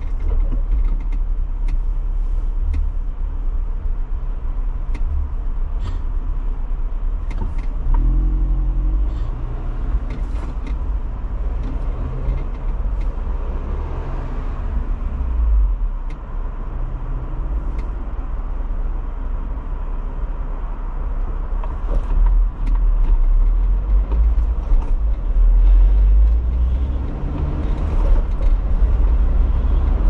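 A car driving, heard from inside the cabin: a steady low rumble of engine and road noise, with the engine note rising as it pulls away about a third of the way in and again near the end.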